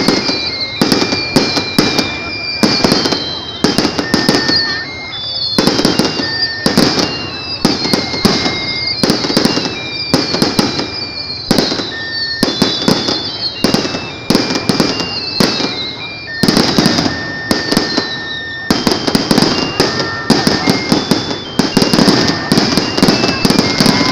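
Aerial fireworks display: a fast, unbroken run of shell bursts and bangs, with high falling whistles between them.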